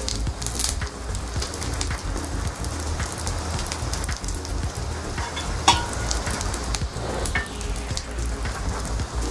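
Wood fire crackling in a fireplace: a steady patter of small crackles, with one sharp, louder pop a little past halfway, over a low rumble.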